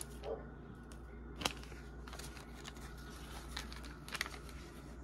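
Faint rustling and a few light clicks of a long paper store receipt being picked up and handled, over a low room hum.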